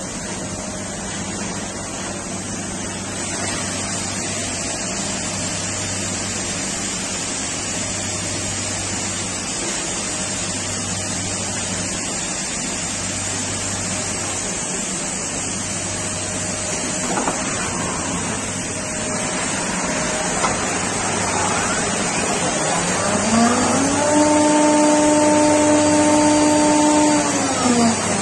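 Busellato CNC machining centre running a program: a steady mechanical hiss and hum, with a low hum that pulses about every second and a half. About 23 seconds in, a spindle spins up to a steady whine, holds it for several seconds, and winds down near the end.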